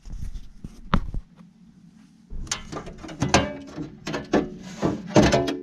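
Sheet-metal box cover being handled and lifted off: a couple of sharp knocks, then a dense run of clattering knocks and scrapes with brief metallic ringing.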